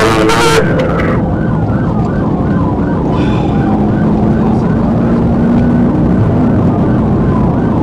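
Police cruiser's siren on a rapid yelp, its pitch sweeping about three times a second, over the car's engine and tyre noise at highway speed. A short burst of hiss sounds in the first second.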